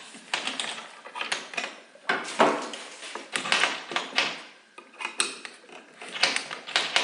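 Irregular clicks, knocks and short scrapes of a hand screwdriver, screws and cedar roof pieces being handled while the hive roof is screwed together.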